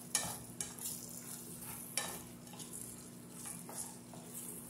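Sauce-coated chicken pieces sizzling in a nonstick pan as the sauce thickens, with a utensil stirring through them and a few short scrapes and clicks against the pan.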